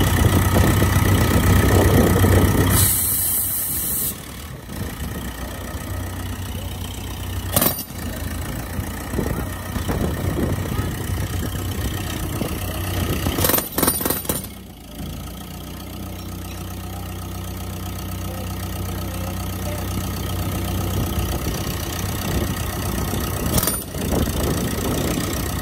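Portable air compressor's engine running steadily with a low hum, supplying a 90 lb pneumatic jackhammer. The first three seconds are louder and busier and end in a brief hiss, and a few short sharp bursts come about eight seconds in, in a cluster around fourteen seconds, and near the end.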